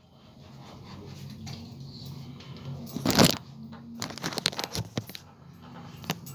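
Handling noise on a phone's microphone: rubbing and knocks, the loudest about three seconds in, over a low steady hum.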